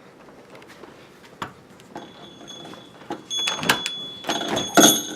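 Front door clicks open, then blizzard wind rushes in loud noisy gusts over a thin steady whistle.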